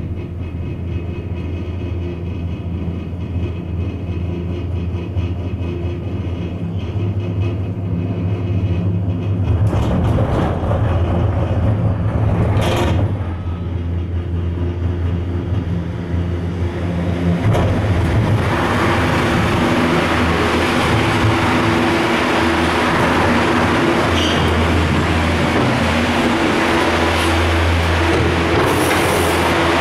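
Von Roll detachable gondola cabin running up the cable with a steady low hum and rumble. There is a clatter about 10 to 13 seconds in as the grip rolls over a line tower's sheaves. From about 18 seconds a louder, even rush of station machinery sets in as the cabin enters the top station and runs onto the tyre conveyors.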